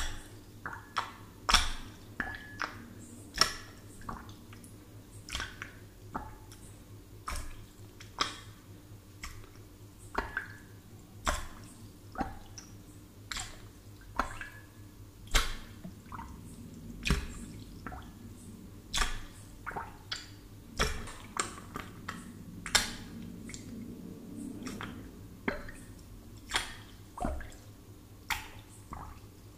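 Air bubbles rising into a glass of water, each a short sharp plop, about one or two a second at an uneven pace, over a faint low hum.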